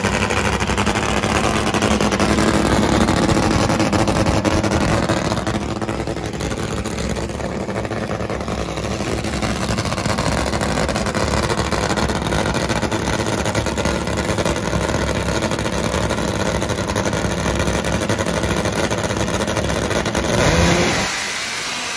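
Nitro-burning Top Fuel drag motorcycle engine running just after being fired up, the pitch rising and falling with throttle blips in the first few seconds, then holding steady. A louder rise about twenty seconds in, then the engine sound cuts off.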